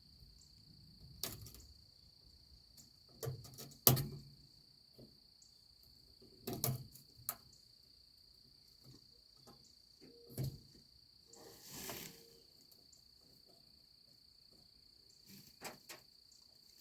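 Intermittent metallic clinks and knocks of tools and steel brake parts being handled on a semi-trailer's S-cam brake assembly. The sharpest knock comes about four seconds in. A steady high insect trill runs behind throughout.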